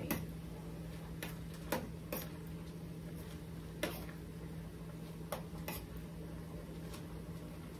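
Spoon stirring in a small stainless saucepan, clinking against the pan in a handful of light, irregular taps, over a steady low hum.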